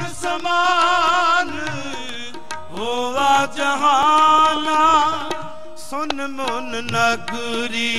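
Sikh kirtan: a devotional hymn sung in long, wavering phrases over a held harmonium tone, with tabla accompaniment.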